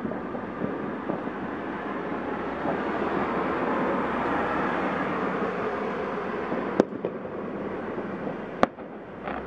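Many fireworks going off at once in a dense, continuous crackle that swells toward the middle. Two louder single sharp bangs stand out, one about seven seconds in and one near the end.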